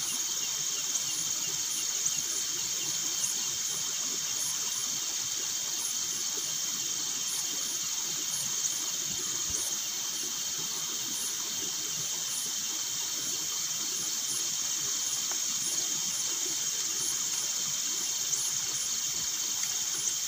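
Night insect chorus: crickets trilling steadily and high, with a higher chirp repeating at a regular beat above them.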